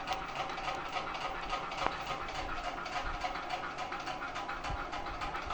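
Small plastic toys being handled, with light clicking and scraping as a piece is pushed into a doll's hand.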